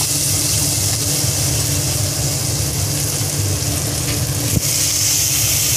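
Prawns and onion sizzling in hot oil in a wok under a steady low hum. The sizzle grows louder near the end as water is poured into the hot pan.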